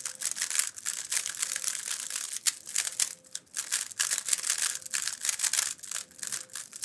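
YJ MGC Evo II, a magnetic 3x3 plastic speedcube, being turned by hand: a quick, irregular run of plastic clicks and clacks as the layers turn and snap into place.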